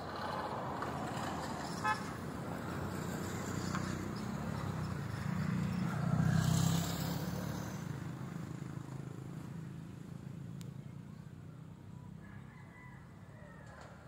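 A motor vehicle passing, its engine and road noise growing louder to a peak about six to seven seconds in, then fading away. There is a brief sharp sound about two seconds in.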